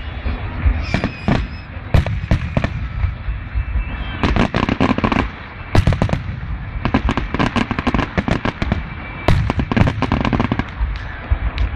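Aerial fireworks going off in quick succession: a steady barrage of booms and sharp cracks, with thicker volleys about four seconds in and again about nine seconds in.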